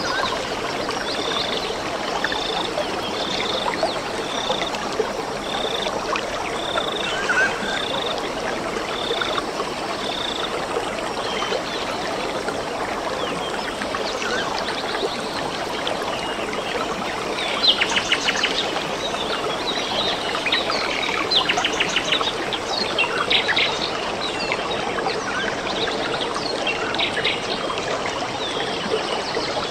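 A stream of running water with birds calling over it. For the first ten seconds one bird repeats a short high note about once a second; later come rapid high chirps and trills.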